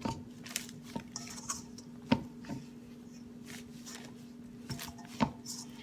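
Flour and water dough being mixed by hand in a bowl: soft wet squishing with scattered clicks and knocks against the bowl, the sharpest about two seconds in, over a steady low hum.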